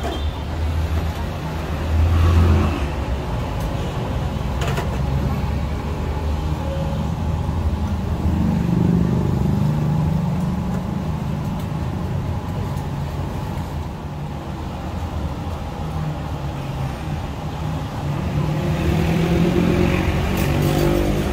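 Road traffic: vehicle engines running and passing, a steady low rumble that swells twice as vehicles go by.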